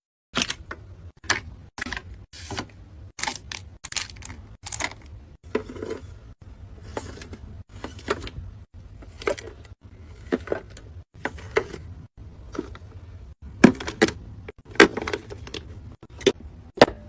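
Makeup cases and containers being handled: a run of sharp clicks and taps, about one or two a second, the loudest ones near the end.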